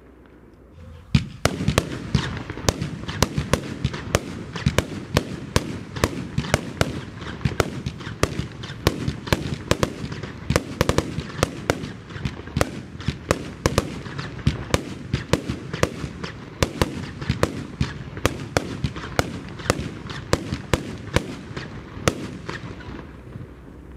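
Compound firework battery firing a rapid string of shots, sharp reports about two to three a second over steady crackling. The string starts about a second in and thins out near the end.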